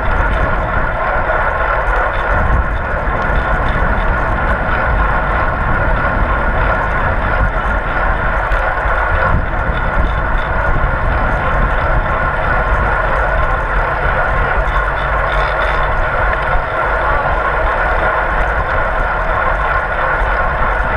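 Steady wind rush on a bicycle-mounted GoPro at racing speed, with a continuous whir of tyres and drivetrain underneath.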